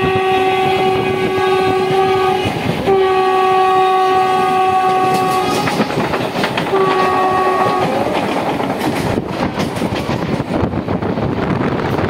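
Train horn blowing three long steady blasts, the third shorter and ending about eight seconds in, over the rumble and wheel clatter of a moving Mumbai local train heard from on board.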